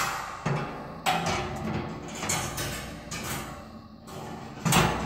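Background music with a series of strong beats.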